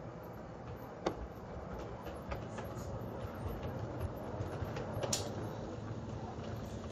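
LGB garden-railway model steam locomotive and coaches running along the track toward and past the listener, a steady rumble of motor and wheels growing a little louder, with a few sharp clicks, the loudest about five seconds in.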